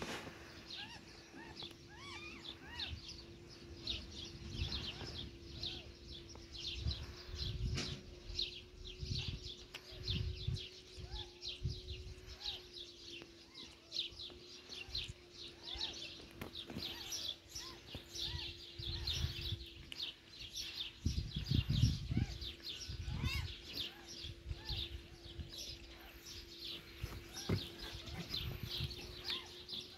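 Small birds chirping rapidly and continuously, over a steady low hum, with scattered low thumps.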